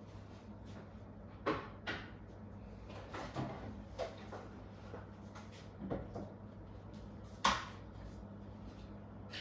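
Household handling sounds: about six separate knocks and clicks of cupboard doors and a container being moved about, the sharpest near the end, over a faint steady low hum.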